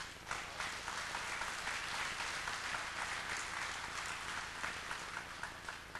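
Audience applauding, many hands clapping together, thinning to scattered claps near the end.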